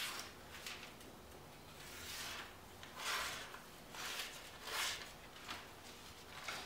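Hand-forged 52100 steel knife slicing a sheet of paper, a few short, faint papery swishes. The edge, dulled by cardboard cutting so that it no longer shaves, still cuts the paper.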